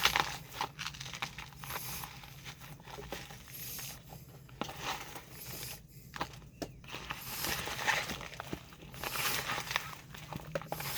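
Hands mixing raw ground meat with seasoning, making irregular squishing and crinkling noises with a few sharp clicks.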